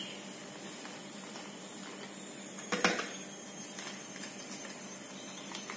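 A plastic bag of rice flour handled and shaken over a food chopper jar, with a short sharp crackle about three seconds in against quiet room noise.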